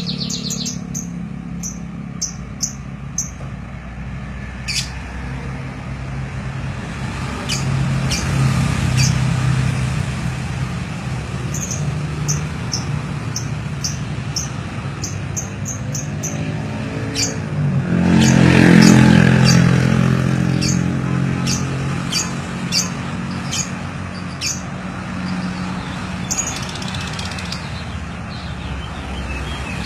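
Domestic canary giving short, sharp high chirps in quick runs, its imitation of a jalak (starling) song, over a steady low motor hum. A vehicle passes, loudest about 18 to 20 seconds in.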